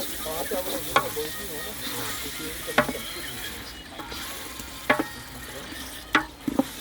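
Curry frying and sizzling in a pot while it is stirred, with a metal spoon clinking against the pot about five times at uneven intervals.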